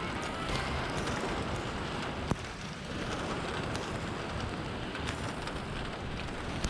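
Steady rushing of a gas flame heating steel round stock, with a sharp click about two seconds in and another near the end.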